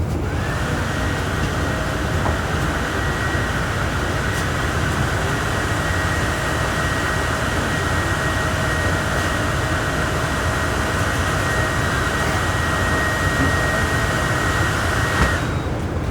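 Volksbus 17.230 OD bus under way, its MAN D0834 engine running steadily while the differential howls with a steady whine. The whine sets in just after the start and cuts off suddenly about a second before the end, leaving the engine.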